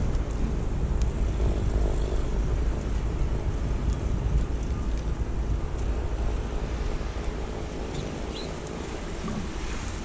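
Wind buffeting an outdoor action-camera microphone, a steady low rumble that eases a little later on, with a short high chirp about eight seconds in.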